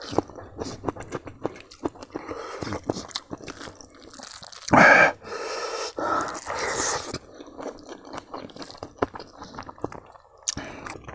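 Close-up eating sounds of a person eating rice and smoked pork with his hand: wet chewing and lip-smacking clicks, with two louder breathy noises about five seconds and about six to seven seconds in.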